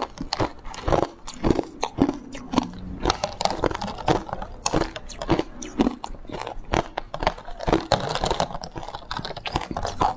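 Close-up crunching of a hard, blue-coloured frozen ice block: repeated sharp bites and cracks, several a second, with chewing of the broken pieces in between.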